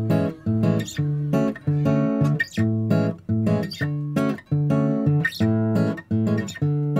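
Background music: an acoustic guitar strumming chords in a steady rhythm, about two strums a second.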